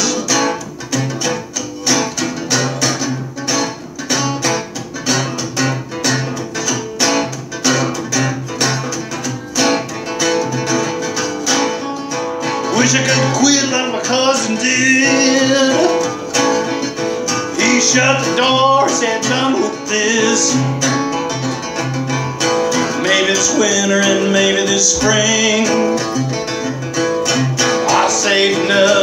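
Acoustic guitar strummed in a steady rhythm, with a man singing over it from about halfway through.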